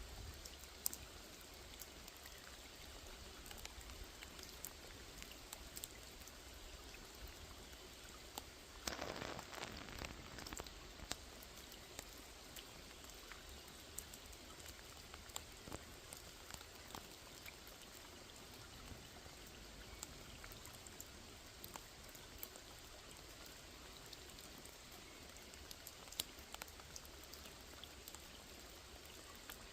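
Light rain falling on a small pond: a soft steady hiss with many scattered single drop ticks. About nine seconds in, a louder rush lasts about two seconds.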